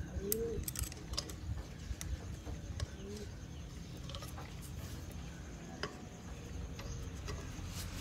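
Faint metallic clicks and ticks of a star key working the valve-plate bolts of an opened refrigerator compressor, several in the first three seconds and a couple more near the end.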